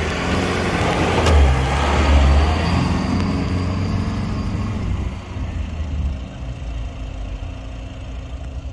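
Off-road 4x4 vehicle engine under throttle in sand, loudest about two seconds in, then fading away.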